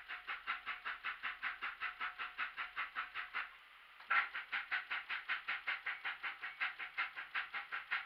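Car starter solenoid chattering in rapid clicks, about eight a second, while the ignition key is held in the start position and the engine does not crank. The clicking stops briefly about three and a half seconds in, then resumes on a second try. This is the typical sign of a battery too weak to turn the starter.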